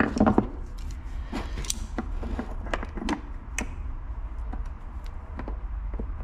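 Clicks and knocks of steel locking pliers being picked up off a wooden workbench and clamped onto a stuck screw on a two-stroke reed valve cage, most of them in the first four seconds. A steady low hum runs underneath.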